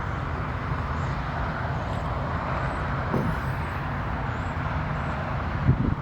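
Steady hum of road traffic, with wind rumbling on the microphone and a louder gust or bump near the end.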